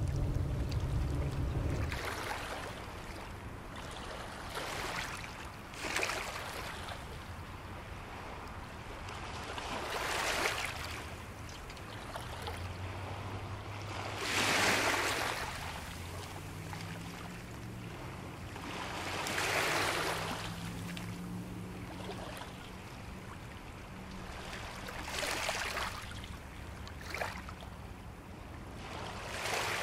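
Small waves washing onto the shore one after another, each swell of surf building and falling away, about every four to five seconds. The biggest breaks about a third of the way in.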